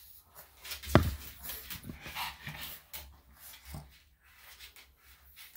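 Senior Shih Tzu whimpering and grunting in short bursts while its muzzle is held for face trimming, with the loudest, sharp, quickly falling cry about a second in.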